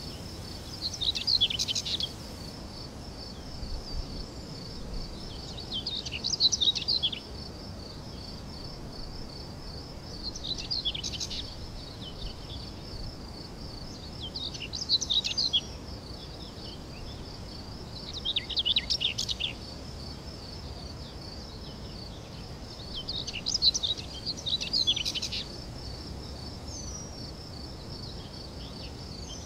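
Birds singing short warbling phrases about every four seconds over a steady, high, pulsing trill of insects such as crickets.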